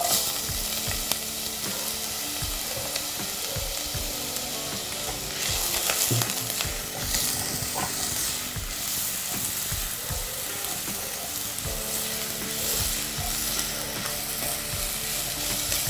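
Shredded carrot sizzling in hot oil with crushed ginger and garlic in a nonstick pan, stirred with a silicone spatula that knocks and scrapes against the pan now and then. The sizzle grows a little louder for a few seconds in the middle.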